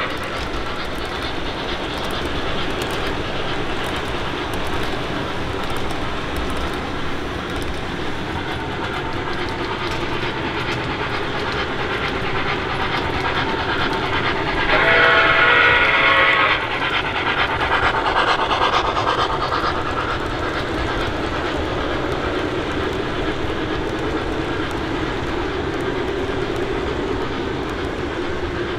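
O gauge model steam locomotive running on the track with its electronic sound system on, giving steady running sounds, and one steam-whistle blast of about a second and a half roughly halfway through.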